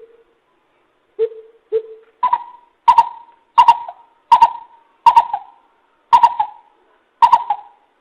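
Coucal calling: a series of short hooting notes, two lower ones and then about seven higher ones, spaced roughly two-thirds of a second apart.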